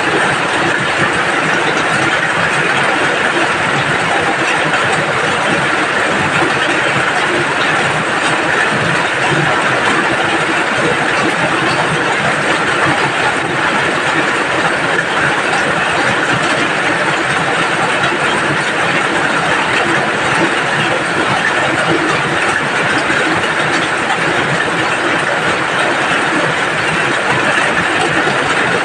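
Steady heavy rain, a dense unbroken patter with no let-up.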